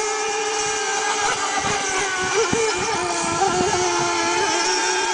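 Engines of several radio-controlled model racing boats running at speed together, a steady layered whine that wavers slightly in pitch as the boats lap the course.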